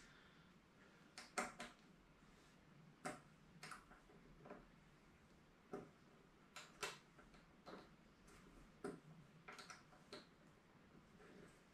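Irregular light clicks and taps, a dozen or so, from a Quad Lock mirror mount being adjusted and done up on a motorcycle's mirror stem.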